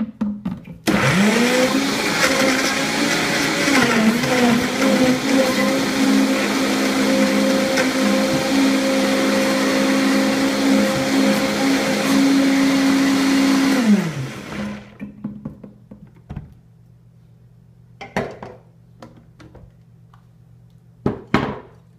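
Countertop blender motor starts about a second in, quickly rises to speed and runs loud and steady for about thirteen seconds, churning frozen fruit, leafy greens and liquid into a smoothie, with its pitch dipping a few times early on under the load. It then winds down with a falling whine, and a few short knocks follow near the end.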